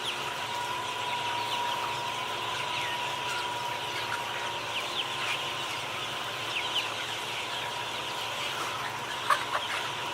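Many birds chirping and peeping, short calls overlapping one another above a steady hiss, with a steady high hum underneath; a couple of sharp clicks near the end.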